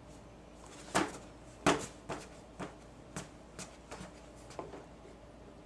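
Irregular light taps and clicks of a toddler's small fork and plastic bowl knocking on a plastic high-chair tray, two of them louder about a second and nearly two seconds in.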